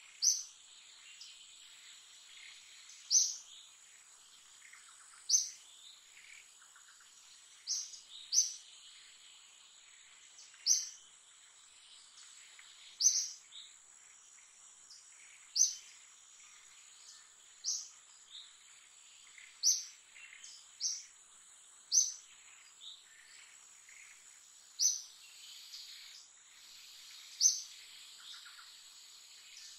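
A bird repeating a short, high call every two to three seconds, sometimes twice in quick succession, over a steady high-pitched insect drone.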